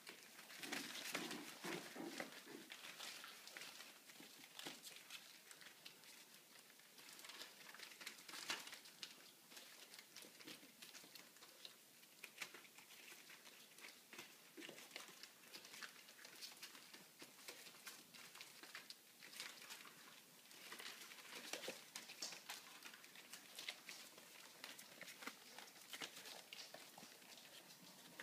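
Puppies playing and scrambling on spread-out newspaper: faint, continual crinkling and rustling of the paper with light patter and taps of small paws.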